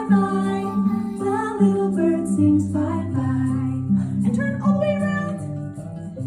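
Music: a woman singing a children's song over a plucked-string accompaniment with sustained bass notes.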